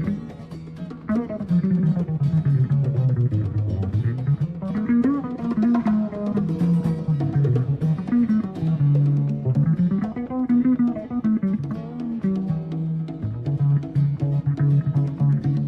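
Jazz-fusion quartet playing live: a prominent bass line rising and falling under guitar, with drums and percussion keeping time.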